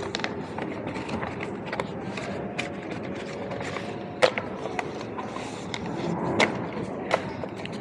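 Steady background noise of a large hall with scattered clicks and knocks as a stack of paper forms is handled close by. The sharpest knock comes about four seconds in, and two more come near the end.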